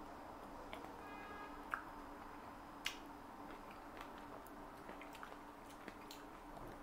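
Faint chewing of a sweet cherry close to a lapel microphone, with a few soft mouth clicks, the sharpest about three seconds in.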